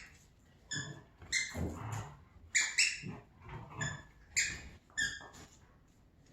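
Dog giving a run of short, high-pitched yelps, about seven in all, mixed with lower, rougher barks, while it goes at a skunk.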